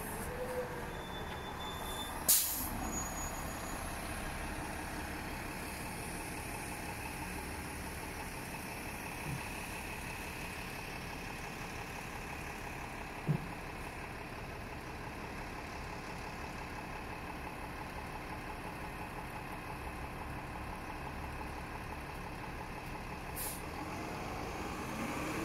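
Steady hum of city buses idling at a bus platform, with one sharp hiss of a bus's air brakes about two seconds in.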